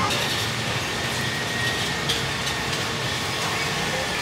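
Steady background noise of a busy street market with traffic, with a light click about two seconds in.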